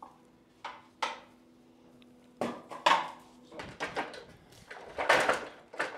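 A series of irregular knocks and short bursts of clattering, as of objects being handled and set down. The loudest come about three and five seconds in. A faint steady hum stops about two and a half seconds in.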